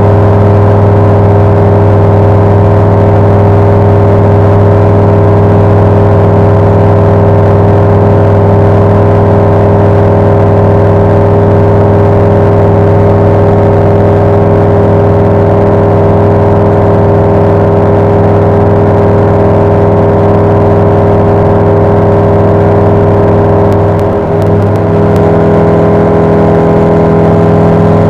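Loud, steady drone of a Flight Design CTSW's Rotax 912 flat-four engine and propeller at climb power, heard inside the small cabin. The note dips briefly about three-quarters of the way through and shifts slightly near the end.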